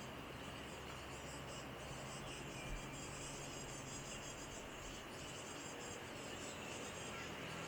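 Insects stridulating in the long grass, a high, rapidly pulsing buzz that goes on throughout, over a steady background hiss.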